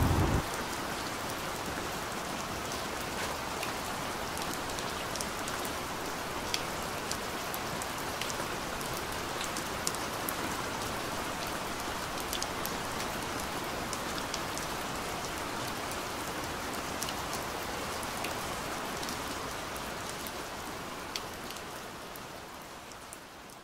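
Steady rain, with scattered individual drops ticking through it. It fades out near the end.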